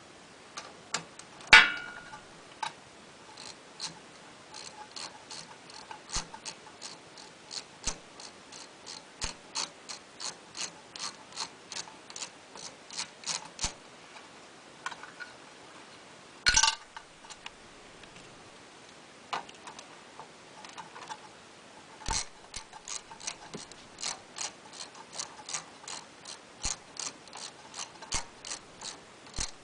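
Socket ratchet wrench clicking in long runs of quick, even clicks, about three a second, as nuts are worked loose on a Wisconsin Robin small engine's carburetor mount. A few louder metal knocks break in.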